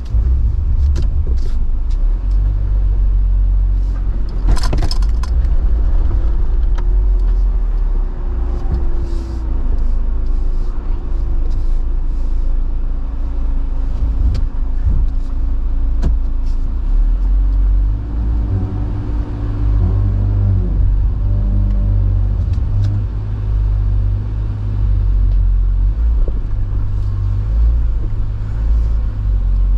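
Jeep Wrangler crawling slowly over rocks: a steady low rumble from the engine at low revs, broken by knocks and clunks as the Jeep strikes rock. The loudest knock comes about four and a half seconds in.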